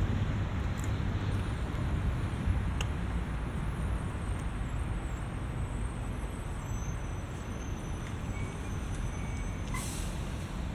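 Steady rumble of road traffic along a city avenue, with a short hiss near the end.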